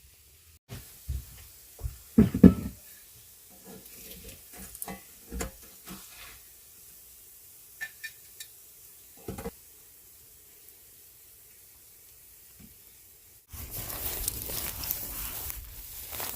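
Food sizzling in a cast iron skillet, with a utensil clanking and scraping against the pan, loudest about two seconds in. Near the end it cuts to a steady rushing noise.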